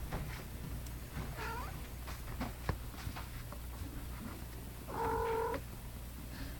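Cat mews: a faint falling mew about one and a half seconds in, then a louder, level meow lasting about half a second near the end, with soft clicks and rustles between.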